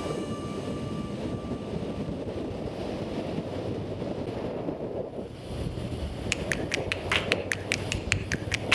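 Wind buffeting the microphone with road and engine rumble from a moving motorcycle, and a faint steady tone dying away in the first two seconds. About six seconds in, a run of sharp, uneven clicks or taps begins over the rumble.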